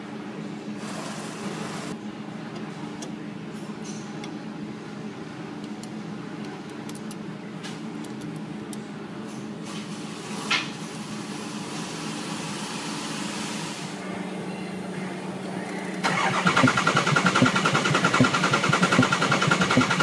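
Ford 6.0 Power Stroke V8 diesel cranking on the starter without firing, heard at the air cleaner box, with popping in the intake. It is a crank-no-start with no base oil pressure. It begins suddenly about 16 seconds in, after a steady low hum and a single sharp click about ten seconds in.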